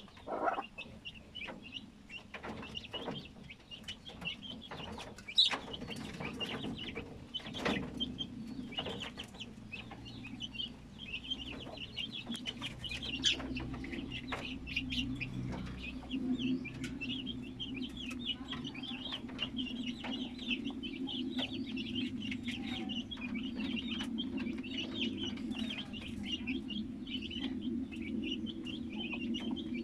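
Several rabbits crunching and chewing grain feed from a metal dish: a run of small irregular clicks. Birds call continuously in the background, and a low steady hum comes in about halfway through.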